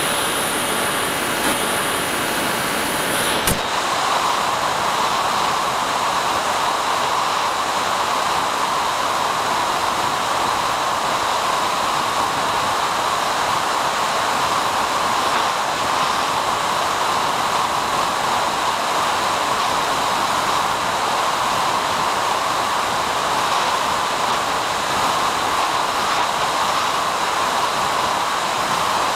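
Steady hiss of static on the analog FPV video link's audio channel. A faint high whine over it stops with a click about three seconds in.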